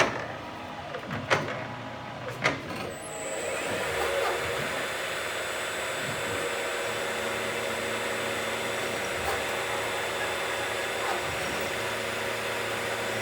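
A few sharp clicks, then from about three seconds in the PM-940 CNC milling machine's spindle and end mill run steadily with a high whine and hiss, taking a light 0.005-inch finishing pass along a square profile in aluminium.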